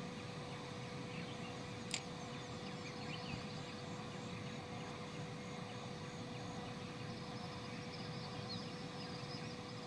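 Steady outdoor ambience with faint scattered bird or insect chirps and a steady hum, broken by one sharp click about two seconds in.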